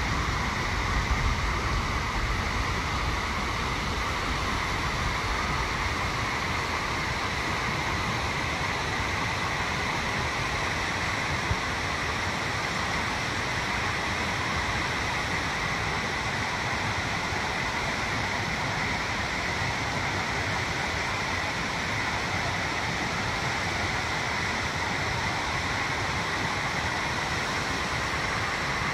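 Rushing mountain stream tumbling over rocks: a steady, even noise.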